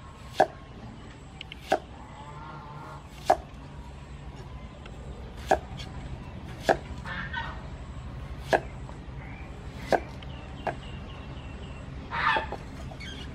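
A kitchen knife cutting an onion on a round wooden chopping board: eight sharp knocks, one every second or two. Chickens cluck in the background, loudest near the end.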